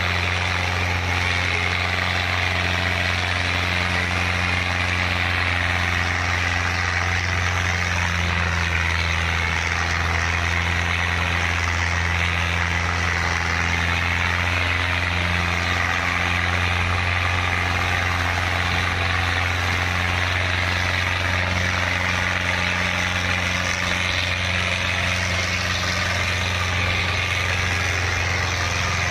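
Fiat 640 tractor's four-cylinder diesel engine running steadily under load, pulling a disc harrow through the soil at a constant pitch with no revving.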